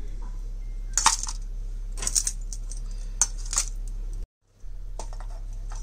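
Sharp metallic clinks and rattles as glowing charcoal pieces are handled in a foil-lined steel bowl, several strokes in small groups, loudest about a second in, over a steady low hum. The sound cuts out briefly about four seconds in.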